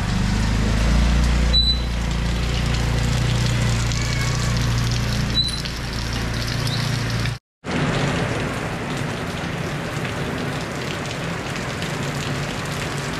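Heavy rain falling steadily. For the first half a motor scooter's engine runs low under it. After a brief dropout about halfway through, only the rain remains.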